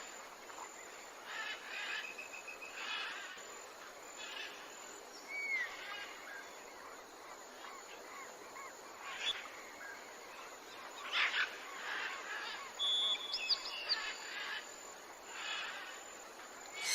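Birds chirping and calling on and off, with short chirps, a rising whistle and a brief trill, over a steady faint outdoor hiss.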